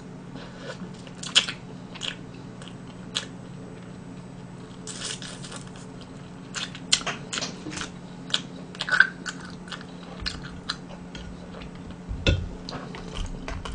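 A person chewing and biting food, with scattered wet mouth clicks and short crunchy bursts, over a faint steady hum. A single low thump comes about twelve seconds in.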